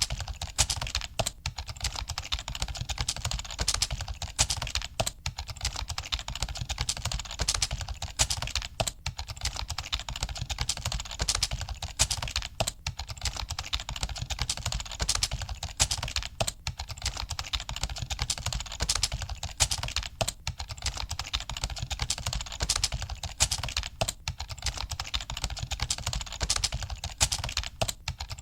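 Computer keyboard being typed on quickly and without letup: a dense stream of key clicks, with a brief gap about every four seconds.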